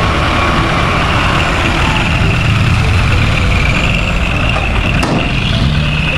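Dump truck engines running steadily with a low rumble and a steady high whine while the hydraulic tipper beds lift to dump soil. A short click about five seconds in.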